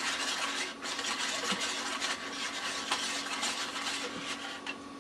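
Hand-turned CD cleaning device being turned around, its pad rubbing over the cleaner-sprayed disc: a steady scraping swish with a few small clicks.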